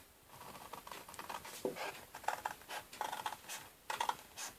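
Scissors cutting out a paper template: a faint, irregular run of short snips and paper rustles.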